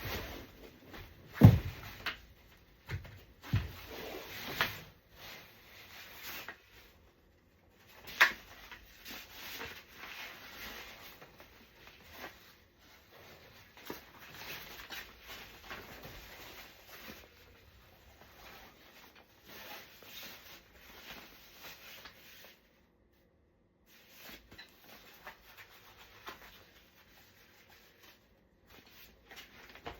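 Parts of a Graco Pack 'n Play Care Suite playard being unhooked and repositioned by hand: on-and-off rubbing and handling noise with a few sharp knocks, the loudest about a second and a half in, others around four and eight seconds in.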